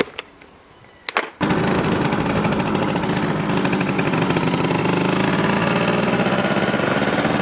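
A couple of clicks, then a motorbike engine starts about a second and a half in and runs steadily with a rapid firing pulse.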